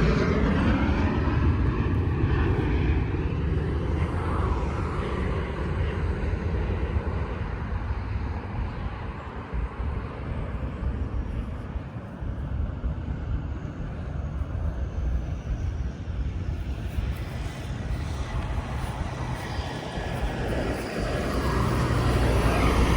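Jet airliner passing low overhead. Its engine noise falls in pitch as it moves away and fades over the first half, then swells again near the end.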